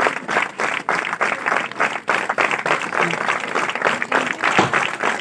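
A small group of people applauding, with fast, overlapping hand claps that keep up steadily.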